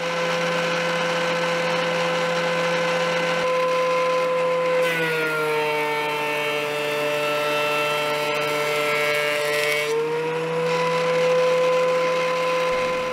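DeWalt DW735X 13-inch thickness planer running at speed. About five seconds in, a board feeds through the cutterhead: the motor's pitch drops under the load and a harsher hiss of cutting chips is added. Near ten seconds the board clears and the pitch rises back.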